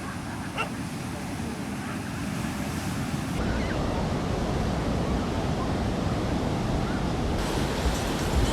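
Sea surf washing onto a beach, a steady hiss of water noise. Its character changes abruptly twice, about three and a half and seven and a half seconds in.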